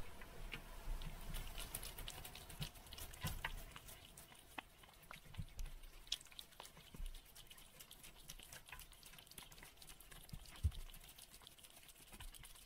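Cats licking and chewing long treat strips: a faint, irregular run of small wet clicks and smacks.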